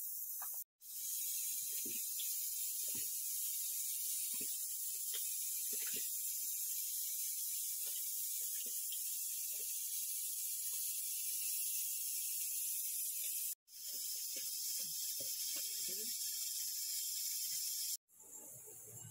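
Steady high hiss with scattered faint clicks and soft knocks, breaking off to silence briefly three times.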